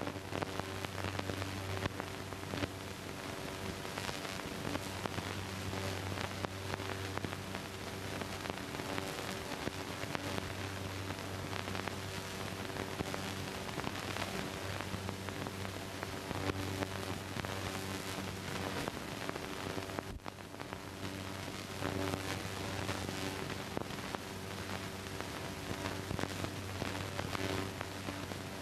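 Steady hiss and crackle with a low hum: the surface noise of an old film soundtrack. It briefly drops out about twenty seconds in.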